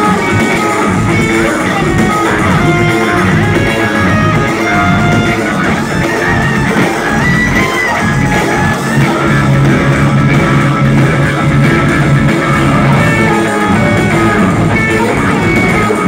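Live instrumental progressive metal played loudly by two electric guitars, bass guitar and drum kit, heard from the audience.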